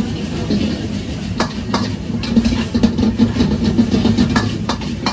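Woks being tossed over high-flame gas wok burners: a steady low rumble under repeated sharp clanks and scrapes of metal ladles against the steel woks.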